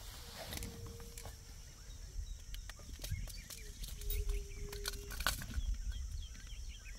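Two low, steady, single-pitch animal calls: a short one shortly after the start and a longer one, about a second, near the middle. They sit over a constant low rumble with scattered faint clicks.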